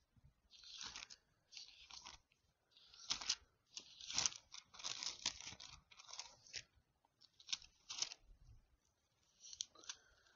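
Bible pages being turned: a run of irregular papery rustles and crinkles, with the busiest flurry about four to five seconds in.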